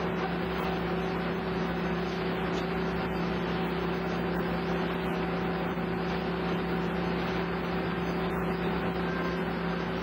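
Large circular head saw and sawmill machinery running steadily without cutting: a constant hum over an even mechanical noise.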